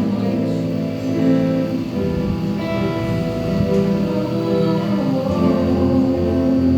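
Slow worship music: acoustic guitar accompaniment under long held melody notes.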